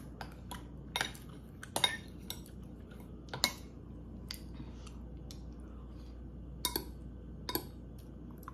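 Metal spoon clinking and scraping against a glass bowl while scooping ice cream: a handful of short, sharp, irregular clinks, the loudest about two and three and a half seconds in.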